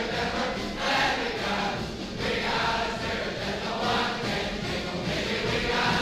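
A large group of male voices singing together in loud phrases that swell and fall back about every second or two, played from an old record.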